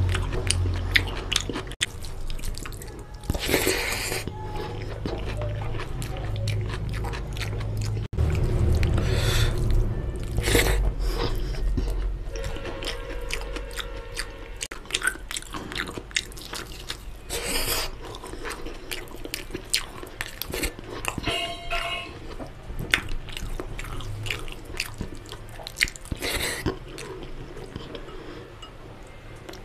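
Close-miked eating sounds: chewing and wet lip smacks over mouthfuls of mutton biryani, with fingers mixing and scooping the rice on a steel plate. Many small clicks, and a handful of louder smacks spread through.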